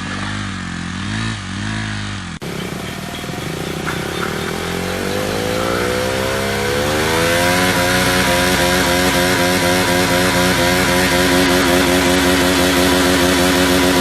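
KTM Duke 390's single-cylinder engine revved in short blips, then, after a sudden break, climbing steadily for about five seconds and held at high revs as the worn rear tyre spins in a burnout, with a loud hiss building under the engine.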